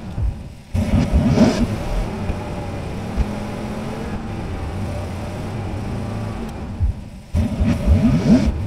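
Dodge D100 pickup's engine heard from inside the cab while driving. It runs steadily, and its revs rise about a second in and again near the end as the truck accelerates.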